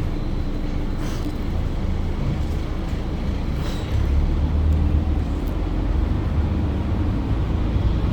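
Mercedes-Benz OC500LE bus running with a steady low rumble, which steps up and grows louder about four seconds in.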